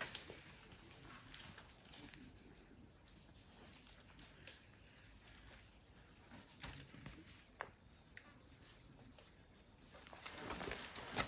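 Faint bush ambience: a steady high-pitched insect trill with scattered soft clicks and knocks. About ten seconds in, louder rustling and knocks come in, the elephant calf's footsteps on the drying, cracked mud.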